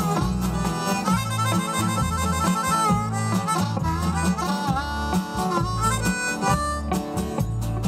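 A live band playing an instrumental break with no singing: a high lead line with bending and quickly repeated notes over a bass line stepping between low notes.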